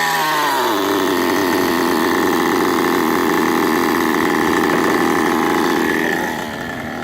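Small nitro engine of a radio-controlled car running at high revs. Its pitch falls over the first second, then holds steady, and it gets quieter about six seconds in.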